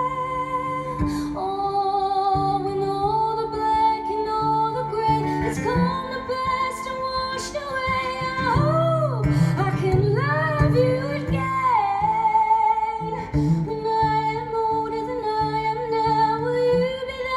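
A woman sings long held notes over an acoustic guitar in a live performance. About nine to eleven seconds in, the voice wavers and bends through a short run.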